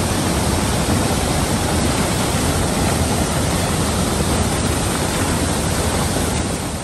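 Large waterfall: a broad cascade of river water pouring over a rock ledge, rushing loudly and steadily.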